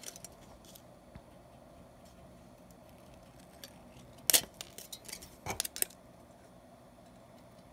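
Scissors snipping thin aluminium beer-can sheet: a few sharp snips, the loudest about four seconds in and a short cluster of two or three a second later, with quiet between.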